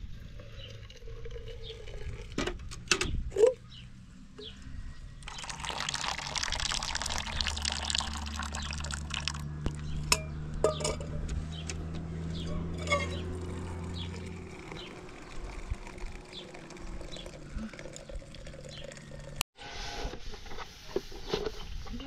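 Water pouring steadily, a rushing sound that begins about five seconds in and cuts off abruptly near the end, with scattered clicks and knocks before it.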